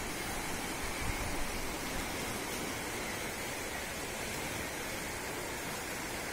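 Fast-flowing floodwater rushing and churning: a steady, even noise.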